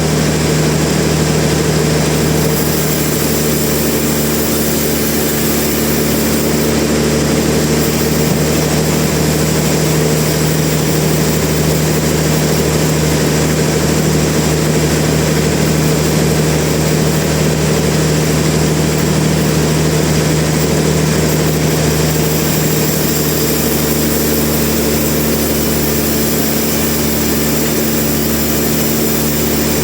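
Sawmill machinery running steadily: a constant engine-like drone with a low hum, unchanging throughout.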